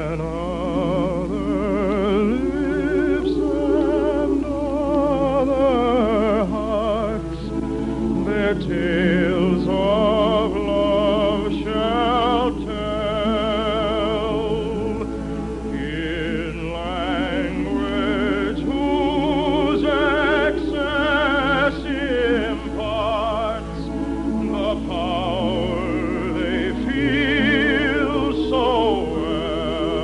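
Operatic singing with wide vibrato over orchestral accompaniment, in long sung phrases with brief breaths between them.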